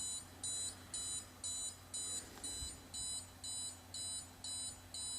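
Electronic alarm buzzer of an Arduino SIM800L GSM alarm beeping, about two short high beeps a second, while the alarm is in its triggered state after the temperature sensor registered a fire.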